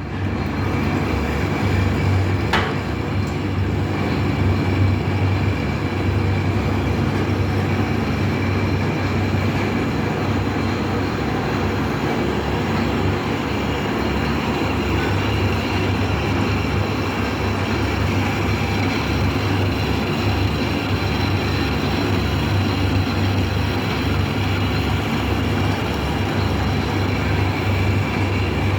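Metal-turning lathe running steadily with an even mechanical hum and noise, with one sharp click about two and a half seconds in.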